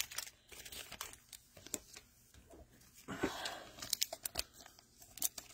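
Thin plastic card sleeves crinkling as a trading card is handled and slid into a sleeve: faint scattered clicks and rustles, with a short louder rustle about three seconds in.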